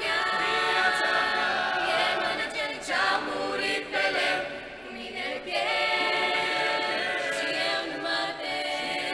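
Mixed a cappella group of men's and women's voices singing a Romanian hymn in harmony, unaccompanied.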